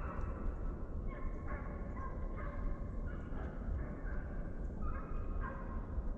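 Hunting hounds baying, a string of long drawn-out bawls one after another, the sound of deer dogs running a deer's trail. A steady low rumble sits underneath.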